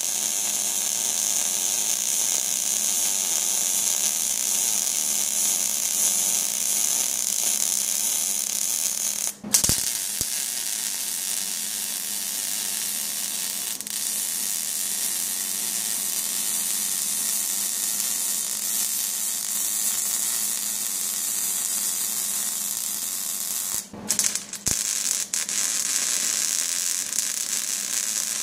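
Wire-feed welder arc crackling steadily as beads are run on steel. It stops briefly about nine seconds in, and again near the end with a few short stutters as the arc is restarted.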